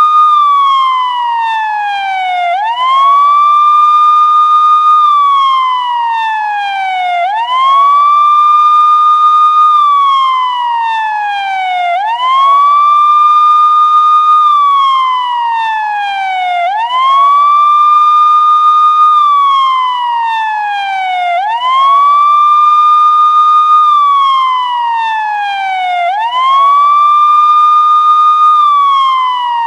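Police siren sounding a wail: each cycle sweeps quickly up in pitch, holds briefly at the top, then falls slowly, repeating about every five seconds.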